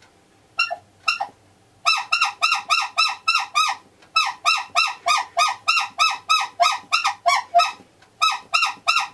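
Hand-squeezed rubber bulb horn, newly fitted and being tested, honking over and over. Two single honks, then quick runs of short honks about four a second, broken by brief pauses.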